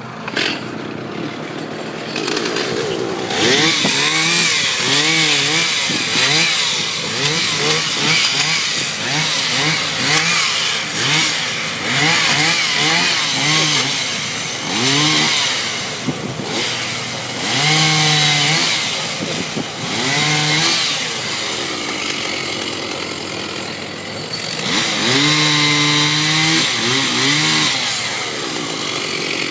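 Stihl 032 AV two-stroke chainsaw running hard, its engine revved up and down again and again so the pitch keeps rising and falling, held steady at high revs for a couple of seconds near the end.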